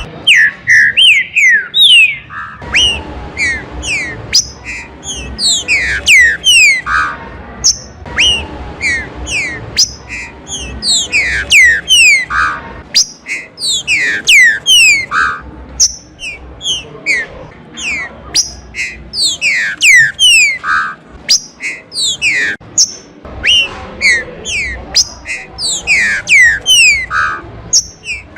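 Green-winged saltators (trinca-ferros) singing: many quick whistled notes slide down in pitch, overlapping and repeated without a break, as from several birds at once. A low rumbling noise runs under the song for stretches.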